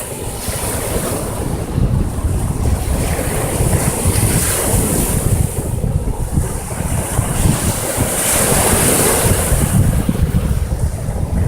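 Sea waves washing onto the shore, the hiss swelling and fading every few seconds, with wind buffeting the microphone in a constant low rumble.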